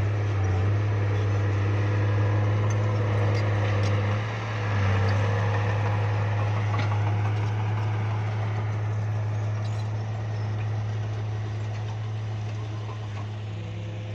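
Bulldozer diesel engine running steadily, with a brief dip in level about four seconds in, growing fainter in the second half.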